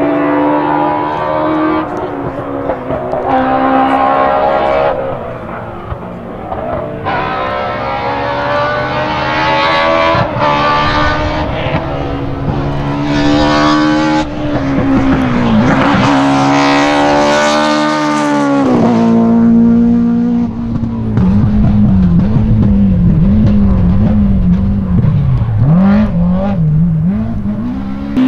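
BMW S14 2.3-litre four-cylinder engines of E30 M3 Group A rally cars revving hard, the pitch climbing through the gears and dropping sharply on each shift. The sound jumps abruptly several times between passes. In the last several seconds the revs rise and fall rapidly over and over.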